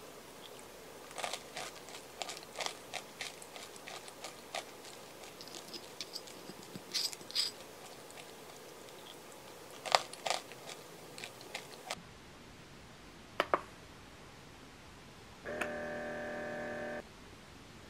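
Metal spoon clinking and scraping in a ceramic bowl, with crunching of granola: a scatter of clicks and crunches for about twelve seconds. Then a single click and a steady electronic tone about a second and a half long from an upper-arm blood pressure monitor.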